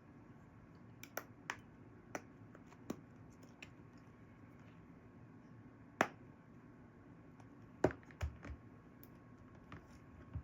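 Scattered small clicks and taps from handling an iPhone and small repair tools during reassembly, the loudest about six seconds in and a quick run of them near eight seconds, over a faint steady hum.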